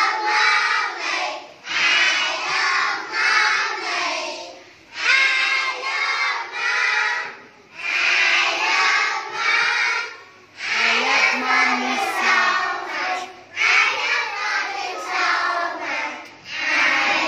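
A class of young children singing a song together in unison, in phrases of two to three seconds with short breaks for breath.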